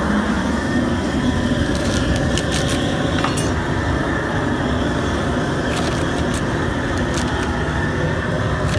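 Steady rushing noise, with a few light knocks of celery and a knife on a plastic cutting board about two, three and six seconds in.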